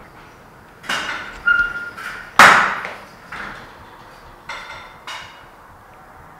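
About seven irregular bangs and knocks from an unseen source, each with a ringing, echoing tail. The loudest comes about two and a half seconds in.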